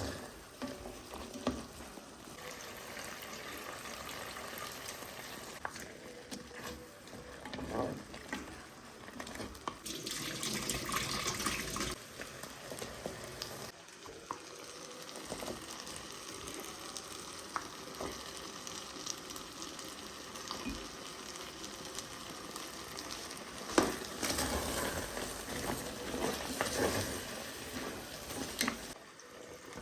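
Food frying in a pan, with scattered knocks of a utensil against the pot.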